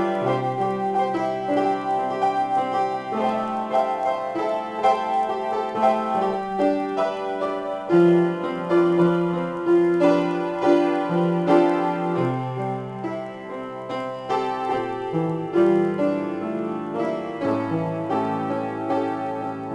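Solo piano improvisation: a steady pulse of struck chords over sustained bass notes that move to a new pitch every couple of seconds.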